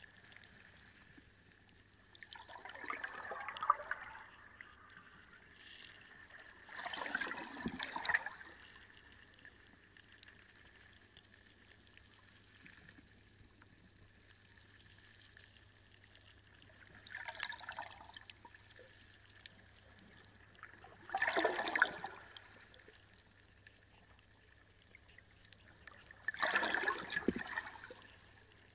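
Reef aquarium water splashing and gurgling in five short surges of one to two seconds each, over a faint steady hum.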